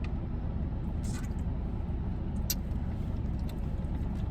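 Steady low rumble of a car idling, heard from inside the cabin, with a few short clicks over it.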